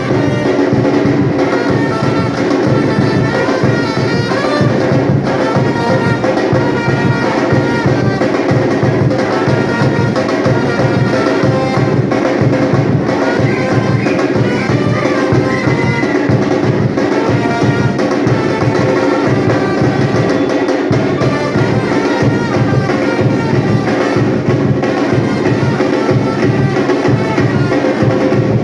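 A batucada percussion band playing live: massed drums keep a steady, driving beat under brass horns carrying the tune.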